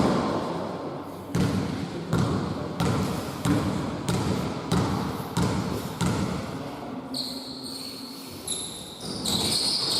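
Basketball being dribbled on a gym floor, a bounce about every two-thirds of a second, echoing in the hall. High squeaks come in near the end.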